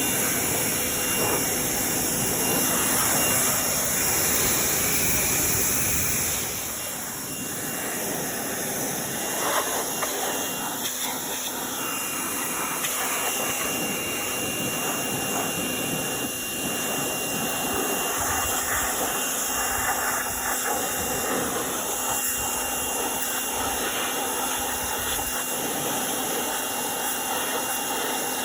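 Pressure washer running and spraying water onto the engine bay of a Cub Cadet riding mower: a steady hissing spray over the machine's constant hum, with the hiss easing a little about six seconds in.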